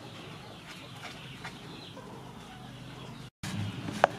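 Wooden spoon stirring batter in a stainless steel bowl, with faint scrapes and one sharp knock of the spoon against the bowl near the end, over birds and chickens calling in the background.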